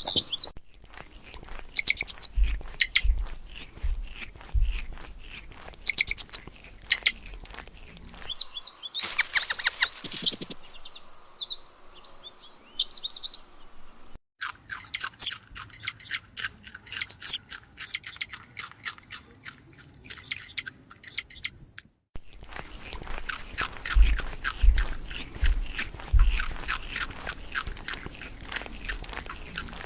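Birds chirping in quick, short, high calls, repeated over several short clips, with a few low thumps in places.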